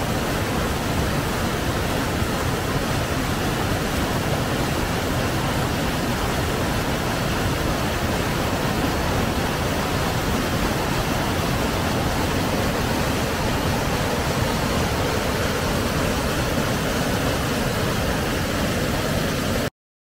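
Rapids and a small waterfall rushing over granite ledges: loud, steady rushing water with no let-up, cut off abruptly near the end.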